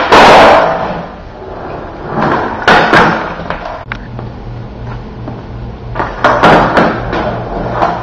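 Skateboard on a concrete floor: the deck pops and lands with loud clacks right at the start, again about three seconds in and a little after six seconds, with the wheels rolling over the concrete in between.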